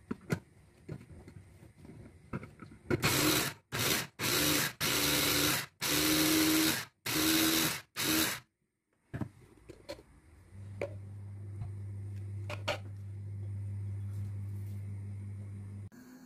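Electric mini chopper (Arzum) grinding walnuts. It is run in about six short pulses of a few tenths of a second to a second each, with a steady motor pitch and the nuts rattling in the bowl. Later a low steady hum runs for several seconds.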